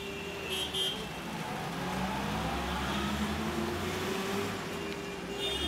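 Car engine running, its pitch wavering up and down, with two short high tones about half a second in.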